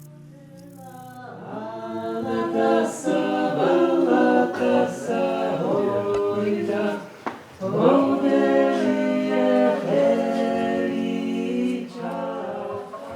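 Several voices singing together a cappella in harmony, swelling in over the first few seconds, with a short break for breath about seven seconds in.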